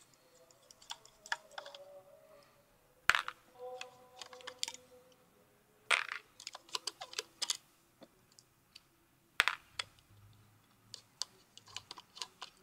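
Scattered small clicks and taps of a screwdriver working the tiny slotted screws on a Bolex film camera's metal body and of small metal parts being handled, with a few sharper clicks about three, six and nine seconds in.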